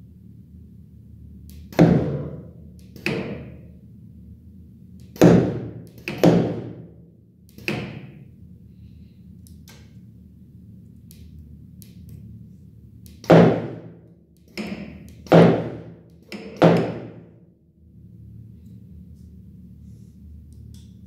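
Aristo Mate 1310 flatbed cutting plotter running over a steady low hum, its tool head making a series of sudden mechanical sounds that each fade within about a second: five in the first half and four more near the end.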